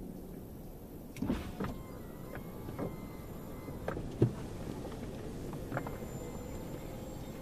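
Electric soft top of an Audi TT RS Roadster opening: a whirring motor with a series of clicks and clunks as the roof unlatches and folds, the loudest clunk about four seconds in.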